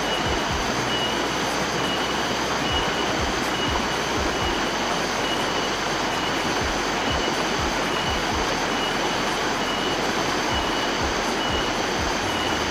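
Steady rushing of a rocky forest stream, with a high tone pulsing about twice a second over it and scattered low thumps of footsteps on the rocks.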